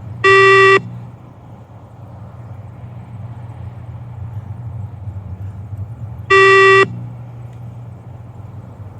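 Two electronic beeps from a beep-test (multi-stage shuttle run) recording, each about half a second long and about six seconds apart, over a steady low hum. Each beep marks the moment the runner must reach the next line on the 20 m shuttle.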